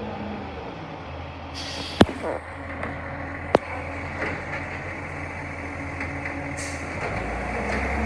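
Garbage truck's diesel engine running steadily, with a short burst of hiss about two seconds in and two sharp knocks, the second about a second and a half after the first.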